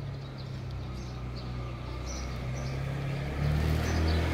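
An engine running steadily in the background with a low, even hum that gets louder about three seconds in.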